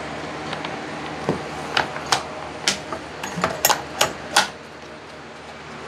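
A quick series of sharp clicks and knocks, about ten, from hand tools and metal chainsaw parts being handled during reassembly. They stop about two thirds of the way through, leaving a faint steady hum.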